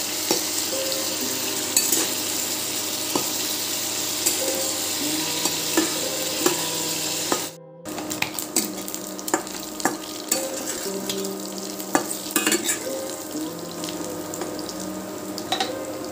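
Prawns frying in mustard oil in a kadai, sizzling steadily while a spatula stirs and scrapes them with scattered clicks against the pan. The prawns are being fried until lightly browned. The sound drops out for a moment just past halfway, then the sizzling and stirring carry on.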